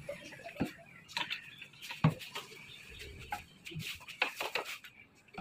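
Scattered small clicks and knocks of hand work with a screwdriver on a plywood cabinet door and its metal hinges, with a sharper knock about two seconds in and a quick run of clicks near the end.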